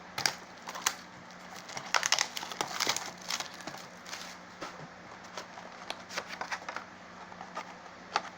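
Trading card box packaging being handled and opened: irregular crinkling and tearing with light clicks, busiest a couple of seconds in.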